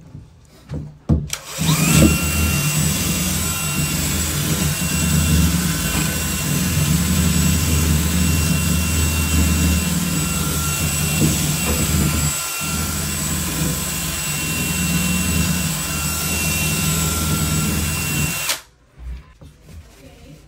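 Cordless drill spinning a wire cup brush against the threaded end of a shower arm to scour it clean. A couple of short trigger blips about a second in, then it runs steadily with a motor whine, dropping out briefly just past halfway, and stops shortly before the end.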